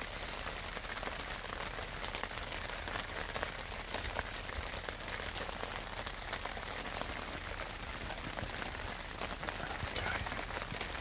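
Heavy rain falling on a small budget tent, heard from inside: a steady, dense patter of drops on the tent fabric.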